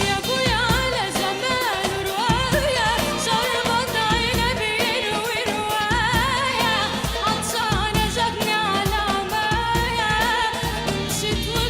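A solo singer carrying a richly ornamented melody with heavy vibrato over a backing band with a steady beat.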